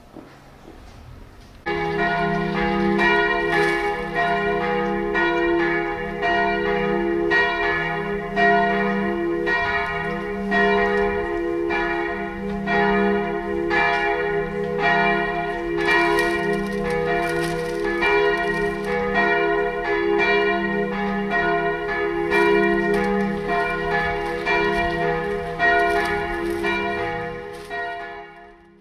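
Several church bells ringing together in a full peal, their strikes overlapping with a lasting hum beneath. The ringing starts suddenly about two seconds in and fades out at the end.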